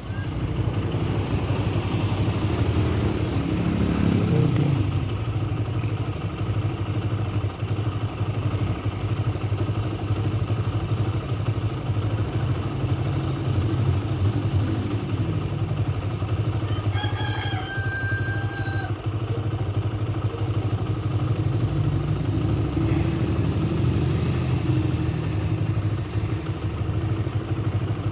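A rooster crows once, about two-thirds of the way through, over a steady low engine drone that runs throughout.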